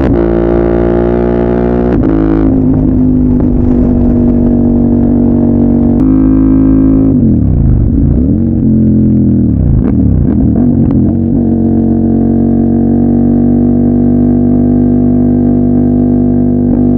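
CFMOTO 800MT's parallel-twin engine running through a Yoshimura full-system exhaust, a steady deep drone. About midway the pitch dips and comes back up twice.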